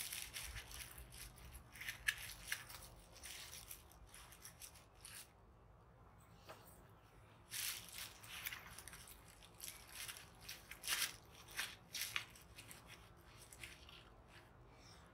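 Thin plastic bag crinkling and rustling in short bursts as it is handled and sponge pieces are pushed into it, in two clusters, with a quieter stretch in between.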